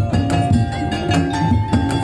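Madurese daul (tongtong) music: drums and pitched percussion playing a fast, steady rhythm, with sustained melodic notes over the beat.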